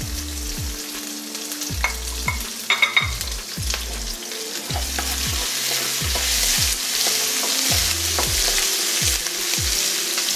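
Chopped ginger and green chillies sizzling in hot oil with mustard seeds, urad dal and dried red chillies, in a tempering just starting to brown. A wooden spatula stirs and scrapes the non-stick wok. The sizzle swells about halfway through, with a few light clicks between about two and three seconds in.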